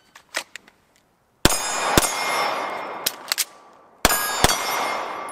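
A 9mm Taurus G3 TORO pistol fired twice, and then twice more a couple of seconds later. Each pair of shots is about half a second apart, and every shot is followed by a long ringing decay. A few light clicks come first, as the pistol is drawn from its holster.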